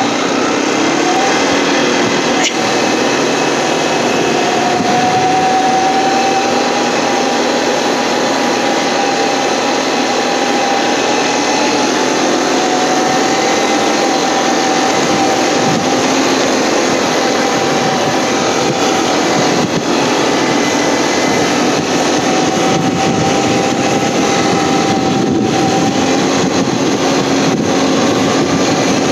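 ATV engine running steadily at speed while towing a kayak on a rope through snow, with a held whine that wavers slightly in pitch.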